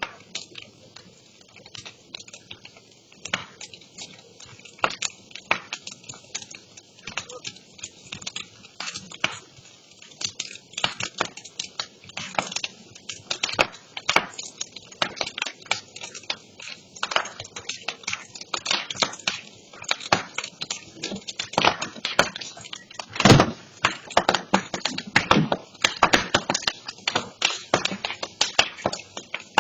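Burning brush pile crackling, with sharp pops that come faster and louder as it goes on. A single loud crack comes about 23 seconds in.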